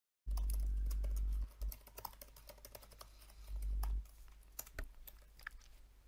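Typing on a computer keyboard: scattered keystroke clicks as a web address is entered. A steady low hum comes in twice, loudest at the start and again around three to four seconds in.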